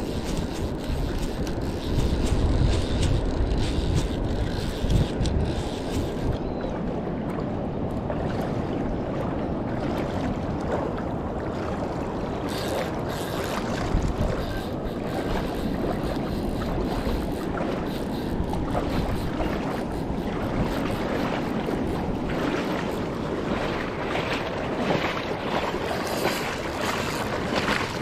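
Wind buffeting the microphone, with a low rumble that is heaviest a couple of seconds in, over the steady wash of shallow water around a wading angler.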